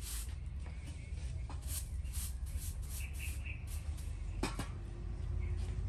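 Kitchen items being handled and rustled on an outdoor table, with a sharp clink and a short ring about four and a half seconds in. A few short bird chirps sound over a steady low rumble.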